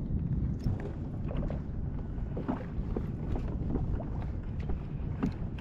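Wind rumbling on the microphone over water lapping against a kayak's hull, with scattered light knocks and splashes.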